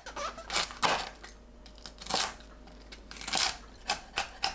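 Chef's knife chopping on a wooden cutting board, through green onion and then green chili peppers. The strokes come unevenly at first, with a short pause, then settle near the end into a quick steady rhythm of about four a second.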